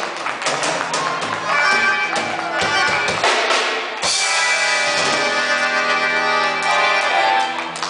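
Gaúcho band music led by a button accordion, with drum kit, played loudly; about four seconds in the band holds a long sustained chord that fades out near the end, closing the song.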